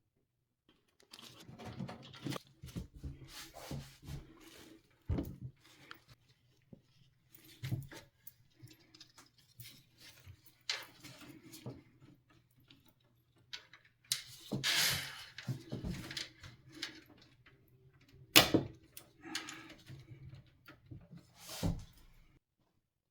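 Handling of PC parts and packaging: scattered clicks, knocks and rustling, with a louder clatter about 15 seconds in and a sharp knock a few seconds later, over a faint steady hum.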